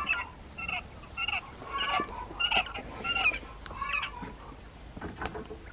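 Japanese quail calling: a quick, uneven run of short chirping calls, several a second.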